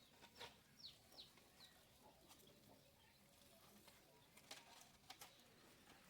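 Faint bird chirps: a quick run of four short calls, each sliding down in pitch, in the first two seconds, followed by a few sharp faint clicks near the end.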